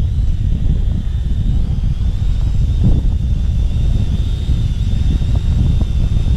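Strong wind buffeting the microphone, with the thin, high steady whine of a Holy Stone HS120D quadcopter drone's propellers above it, wavering slightly in pitch.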